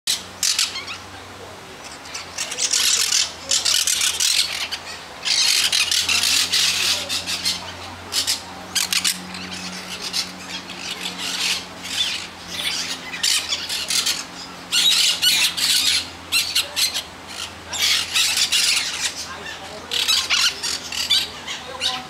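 A flock of caged parrots squawking: loud, harsh screeching calls that come in repeated bursts, often overlapping.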